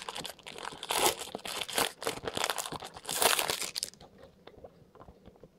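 Foil wrapper of a 2013 Prizm football card pack being torn open and crinkled in loud rustling bursts that stop about four seconds in. A few faint ticks follow as the cards are handled.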